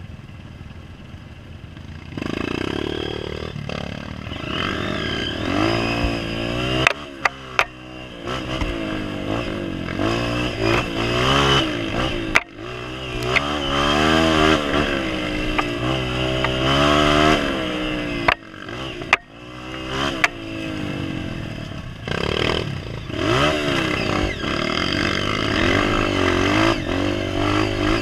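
Honda CRF230F dirt bike's single-cylinder four-stroke engine revving up and down as the throttle is worked on and off, with several sharp knocks and clatter from the bike over bumps.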